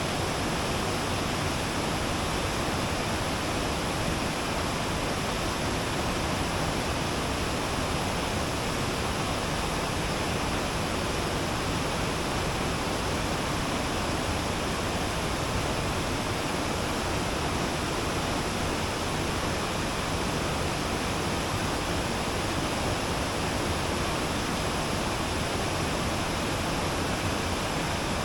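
Steady rushing water, an even unbroken roar at a constant level, as of a waterfall or fast stream.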